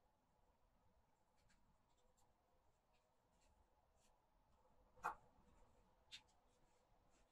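Very faint scratching of a thin wooden stick packing a loose nitrocellulose-and-magnesium mixture into a small paper cartridge, with a light tap about five seconds in.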